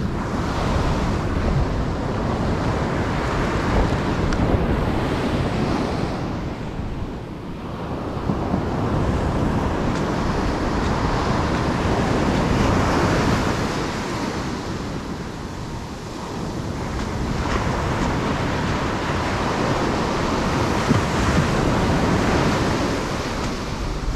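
Surf breaking on a sandy beach, a steady rush that swells and eases with the waves, with wind buffeting the microphone.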